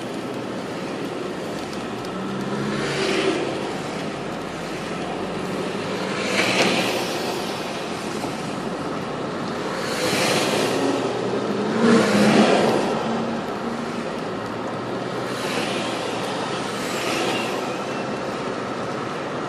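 Freight train rolling past on the tracks: a steady noise of wheels on rails that swells every few seconds.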